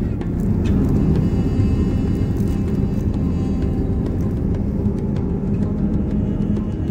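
Steady low rumble of a Boeing 787-9's cabin noise, the engines and airflow heard from inside the airliner.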